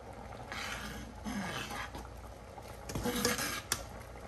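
A metal spoon stirring and scraping in a pot of simmering peas and coconut milk, in three short rough strokes, then a sharp tap of the spoon on the pot near the end.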